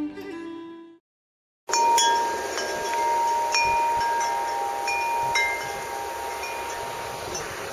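A music tail fades out, and after a short silence wind chimes start ringing at scattered, irregular pitches over a steady wind-like hiss.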